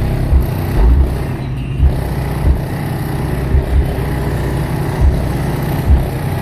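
Car audio system with three 18-inch subwoofers in a Chevrolet Tahoe playing bass-heavy music, with deep bass hits landing every half second to a second.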